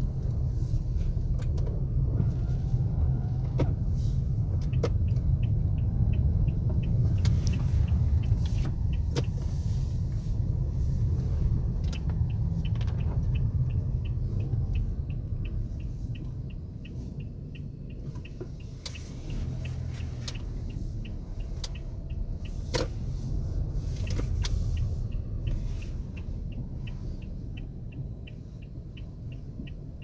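Car cabin rumble while driving slowly on a snow-covered road, with a few sharp knocks and a steady, regular ticking of a few ticks a second through much of the second half. The rumble eases off after the first half as the car slows.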